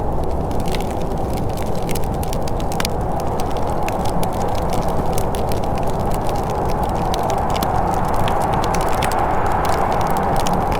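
Wood fire crackling in a fireplace: many small sharp pops at irregular intervals over a steady low rumble.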